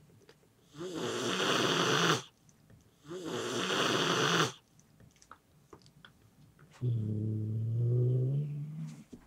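An adult domestic cat hissing hard twice, each hiss about a second and a half long with a rough rattle under it, then a low growl lasting about two seconds near the end. It is a threat display aimed at a kitten, strong enough to make it back off and stay still.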